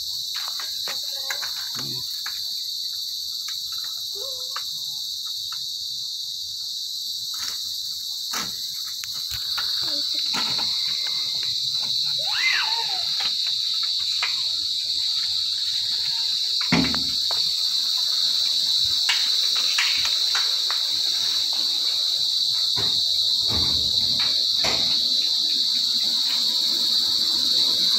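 Night-time chorus of crickets trilling steadily and high, a little louder from about ten seconds in, with scattered faint clicks.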